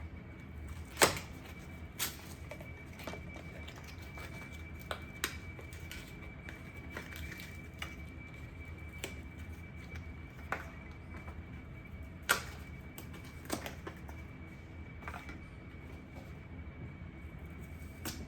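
Scattered sharp clicks and taps from packaging and a boxed item being handled, the loudest about a second in and about twelve seconds in. Under them runs a steady low hum with a faint high-pitched whine.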